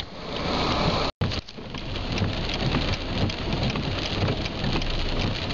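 Heavy rain hitting a moving car's windshield and roof, heard from inside the car as many small ticks over a steady hiss. It is preceded by about a second of rushing floodwater that cuts off abruptly.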